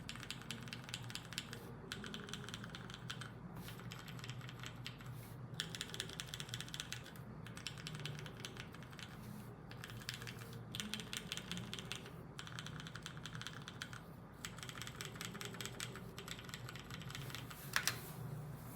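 Typing on a UTD 356 mini mechanical keyboard with vintage Cherry MX Clear tactile switches and DCS keycaps. Quick key clicks come in runs of a second or two with short pauses between, and one louder clack near the end.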